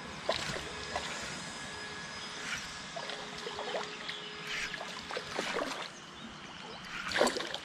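Spinning reel being cranked to retrieve line, with a few brief handling knocks.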